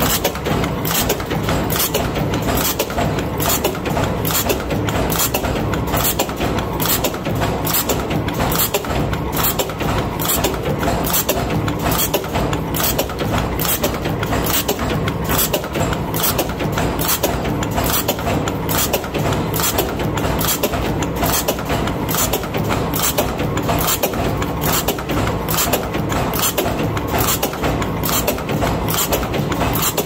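Power press with a progressive die stamping 3/4-inch stainless-steel buckle rings from strip, running continuously: a steady machine hum with evenly repeated stamping strokes at about two a second.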